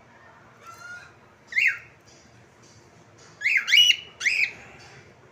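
Cockatiel calling: a soft call, then a loud call about a second and a half in, then three loud calls in quick succession near the end, each bending up and down in pitch.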